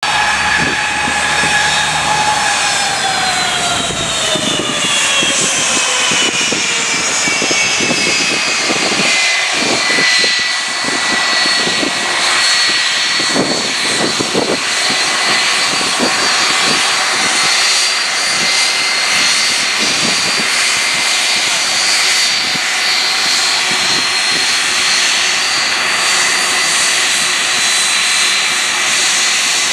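Twin turbofan jet engines of a Boeing 757-200 running at taxi power, a loud steady jet whine over a broad rush. The whine falls in pitch over the first several seconds and then holds steady.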